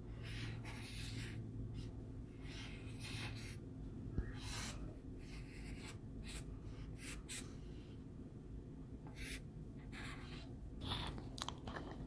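A drawing tool scratching on paper in short, irregular strokes while a child draws lily pads.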